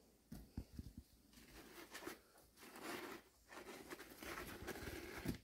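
Kittens scrambling on and inside cardboard boxes: a few light knocks, then steady rustling and scratching of claws on cardboard.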